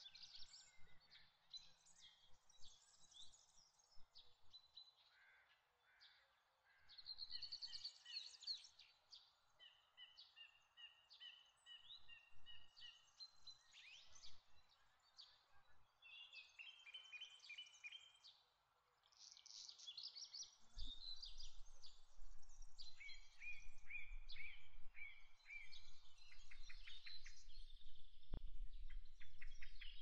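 Many small birds chirping and trilling over one another, over a faint steady background hiss. About two-thirds of the way through, a low rumble joins in.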